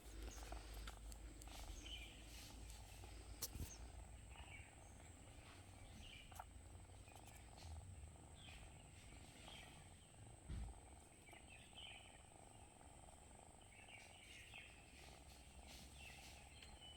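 Very faint purring of nursing kittens, with soft high chirps every second or two.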